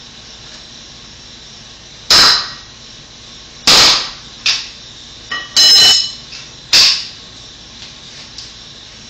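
About six sharp, loud hammer blows at the foot of a wood wall stud, spaced unevenly a second or so apart. One blow near the middle rings briefly like metal.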